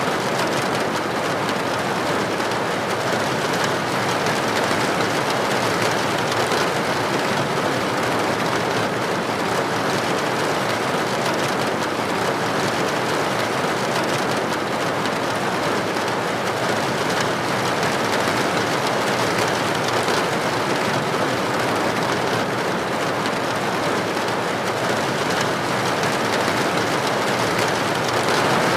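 Steady rain falling, an even unbroken hiss of dense drops with no thunder or separate drips standing out.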